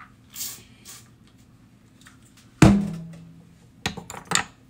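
A jar is set down on a kitchen counter with a loud knock that rings briefly, about two and a half seconds in, then two or three lighter clinks of jars near the end. There is a short rustle of a cloth near the start.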